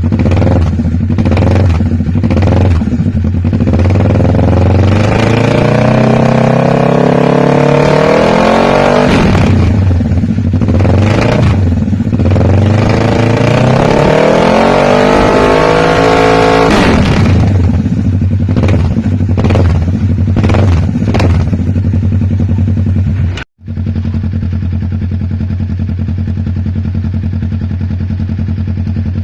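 Kawasaki Ninja 650's parallel-twin engine idling and being revved: a few quick throttle blips, then two long revs that climb and fall back, about four seconds in and again about ten seconds in. More short blips follow, then it settles to a steady idle. The sound cuts out for an instant about three-quarters of the way through.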